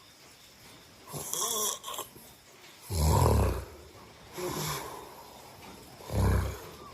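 A person snoring in sleep: two loud, low snores about three seconds apart, with softer breaths between them.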